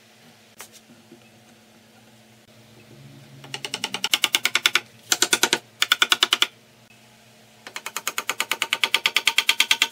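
A mallet knocking a wooden table leg into a glued joint in the tabletop with very fast knocks, about ten a second. They come in three short runs from about three and a half seconds in, then a longer run near the end.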